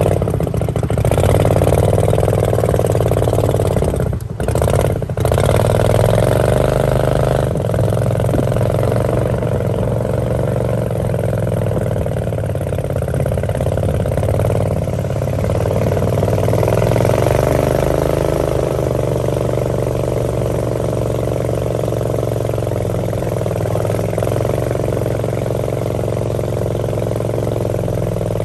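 Small wooden boat's engine running steadily at cruising speed, briefly cutting out twice about four to five seconds in.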